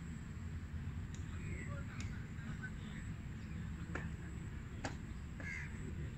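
Open-air field ambience: a steady low wind rumble on the microphone, faint distant calls now and then, and four sharp clicks, the loudest just under five seconds in.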